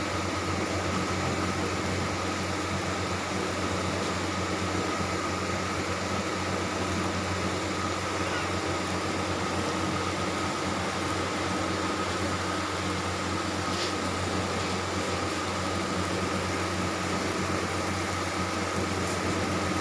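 A steady low hum with an even hiss and a thin high whine over it, unchanging.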